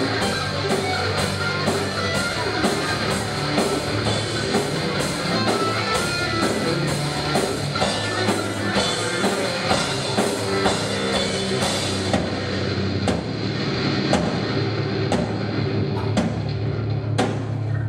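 Live rock band playing loud distorted electric guitars over a drum kit with a steady, driving beat. About twelve seconds in, the dense cymbal hits drop away, leaving sparser crashes.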